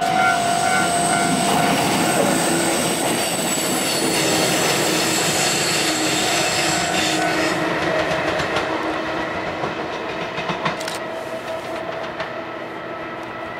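A blue-and-cream electric locomotive running along the track, its wheels clattering over the rail joints, with a few steady tones from the machinery. It grows steadily quieter as it moves off into the distance.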